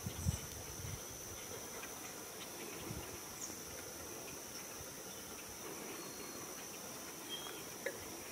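A steady, high-pitched chorus of insects, with a brief soft low thump just after the start.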